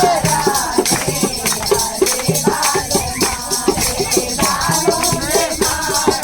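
Song music with a singing voice over a quick, steady percussion beat with a jingling, shaken sound.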